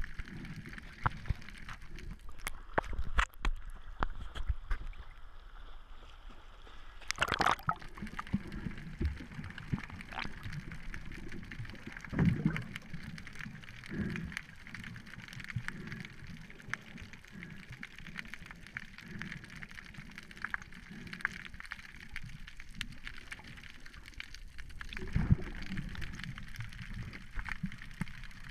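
Muffled underwater water noise picked up through a GoPro's waterproof housing: gurgling and sloshing with scattered clicks and low knocks, and a louder rush about seven seconds in.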